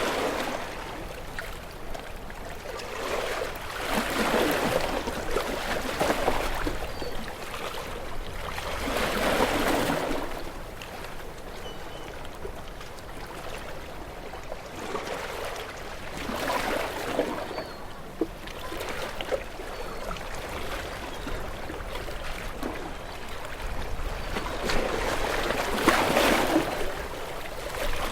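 Ocean waves breaking and washing in, with a loud surge every few seconds over a steady wash of water.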